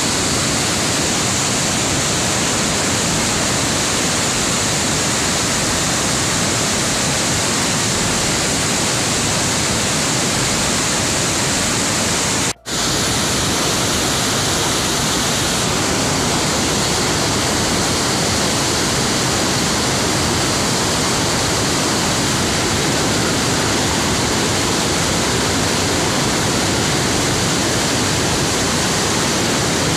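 Steady, loud rushing of floodwater on the Indus at Chashma Barrage as it churns through and past the barrage. The sound breaks off for a moment a little under halfway through, then resumes.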